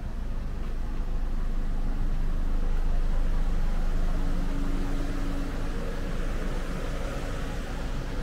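A motor vehicle's engine running close by over low city-street rumble, swelling over the first few seconds and easing off after the middle, as a car going slowly past.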